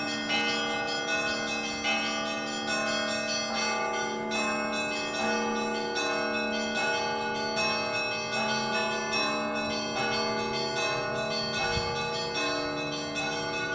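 Orthodox cathedral bells ringing a peal: several bells of different pitches struck in quick succession, their tones overlapping and ringing on, with a low bell tone sounding underneath.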